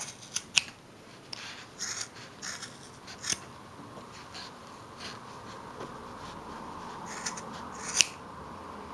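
Scissors snipping through the loops of a wool-yarn pompom: a series of short, sharp cuts at uneven intervals, the loudest near the end.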